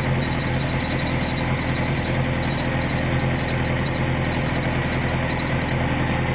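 Water pump of a 2000 Honda CBR 929's inline-four engine whistling with a steady high whine over the idling engine and the running radiator fan, louder with the engine hot and the fan on. The whistle is taken as the sign of a worn pump, cured by fitting a water pump repair kit.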